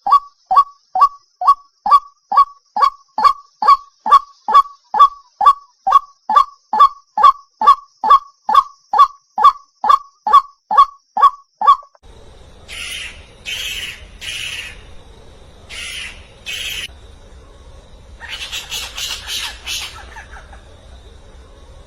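Bird calls: one bird repeats a short, loud, falling note about twice a second for some twelve seconds. Then, after a cut, harsher, scratchy squawking calls come singly and in a quick run near the end.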